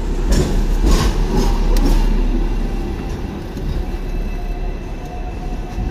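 Hong Kong double-decker electric tram running along its rails, heard on board: a steady rumble with several sharp clacks in the first two seconds and a faint steady whine.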